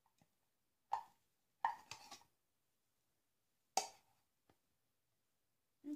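Short knocks and plops as thick cold process soap batter is scraped with a spatula from a plastic pitcher and dropped onto the top of a soap loaf. There are about four sharp hits a second or two apart, the second one doubled.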